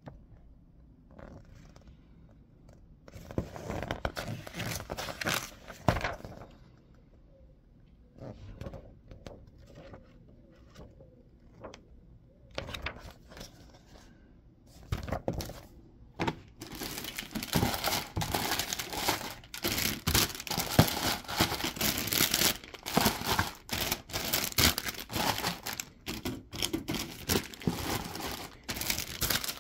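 Paper rustling and handling of a glossy instruction booklet. From about halfway, a steady crinkling of the plastic bags holding a Gunpla model kit's parts as they are handled inside the cardboard box.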